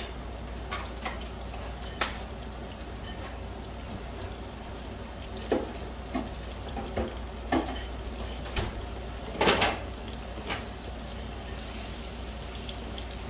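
Chopped onions, tomatoes, garlic and ginger sizzling in oil and butter in a nonstick pan, with scattered light knocks and clicks of utensils against the pan; the loudest is a double knock about nine and a half seconds in. Near the end a slotted spatula starts stirring the vegetables.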